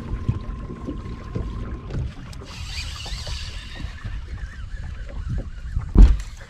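Wind and water against a fishing boat's hull, with scattered small knocks. A faint steady tone runs through the first two seconds, a brief hiss comes about halfway, and a single heavy thump on the boat comes near the end.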